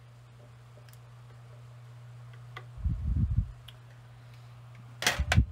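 Handling noise from a pistol-grip soldering gun being lifted off the work and moved aside on a workbench: a few faint ticks, a dull knock about three seconds in, and a sharp, loud click near the end, over a steady low hum.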